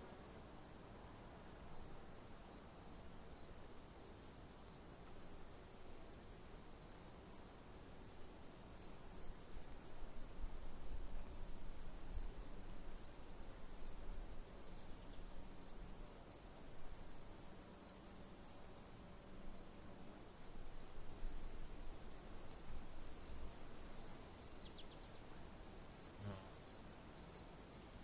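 A night chorus of crickets: one insect trills as a steady high-pitched drone, while another chirps in quick, regular pulses, several a second.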